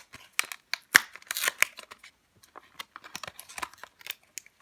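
Plastic toy packaging being opened by hand: irregular crinkles, clicks and snaps of the plastic, with the sharpest snap about a second in.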